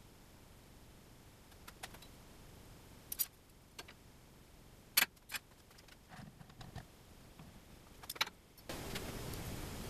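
A few light metallic clicks and taps as a steel rule and pencil are handled against an aluminum bar being marked out. Near the end a steady hiss comes in.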